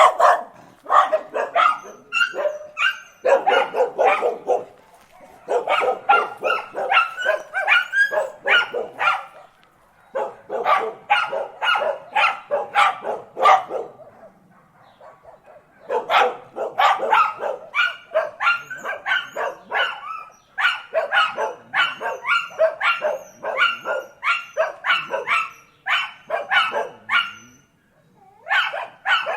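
Dogs barking in rapid volleys of several barks a second, in bursts of a few seconds with brief pauses between them.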